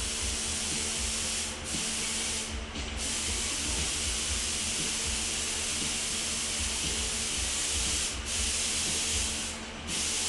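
Paint spray gun hissing as it lays down clear coat on a car panel. The hiss stops briefly four times as the trigger is let off between passes.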